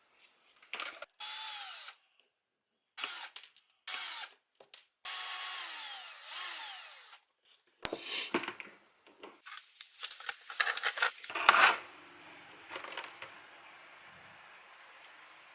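Small electric drill-driver run in short bursts, its whine falling in pitch as it spins down after each trigger release; then several seconds of clattering and knocking of handled parts.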